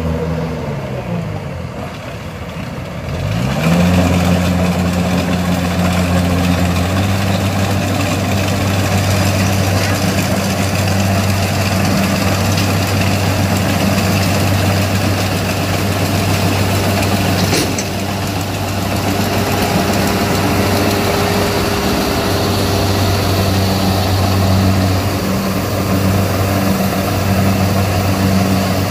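Kubota DC70 combine harvester's diesel engine. Its revs fall over the first few seconds, pick up again about three and a half seconds in, and then hold steady at high revs.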